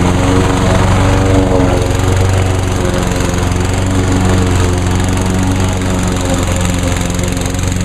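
Craftsman walk-behind lawn mower's single-cylinder engine running steadily.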